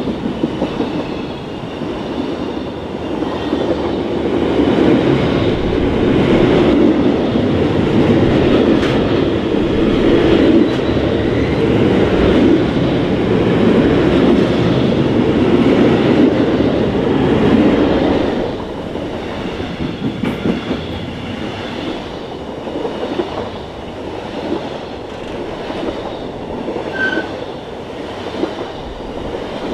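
Intermodal container freight train passing at speed, its wagons' wheels making a steady rumble on the rails that drops a little in level about two-thirds of the way through.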